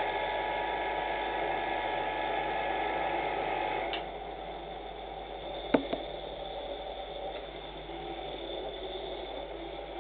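Homemade bench grinder's electric motor running steadily with its grinding stone spinning, a steady hum and whine of several tones. It gets somewhat quieter about four seconds in, and there is one sharp click a little before six seconds.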